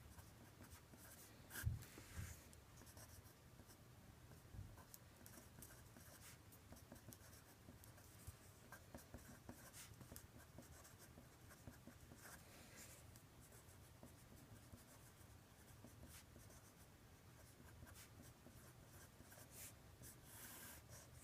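Faint scratching and tapping of writing strokes as equations are written out, with one louder knock about two seconds in.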